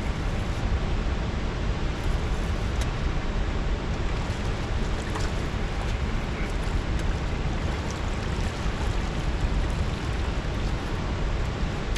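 Steady rushing noise of wind and running water, with a few faint ticks here and there.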